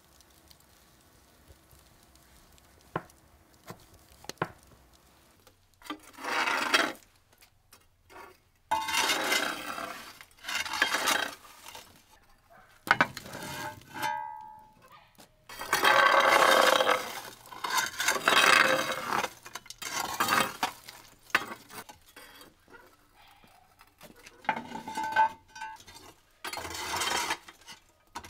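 Kitchen work: a utensil scraping and stirring against a bowl in bursts of one to three seconds, with a few light clicks and a brief clink.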